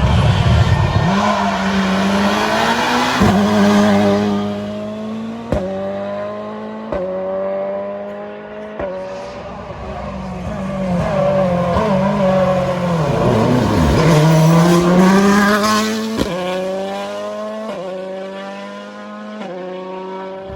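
Rally car engine at full throttle, its pitch climbing and then dropping sharply at each upshift, about seven times in all. Around the middle the pitch sweeps down as the car passes close, then climbs again through more gears as it pulls away.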